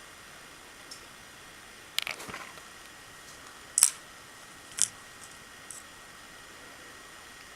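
A few sharp clicks and taps, three of them loud and about a second apart, the first followed by a brief rattle, over a faint steady hiss with a thin high whine.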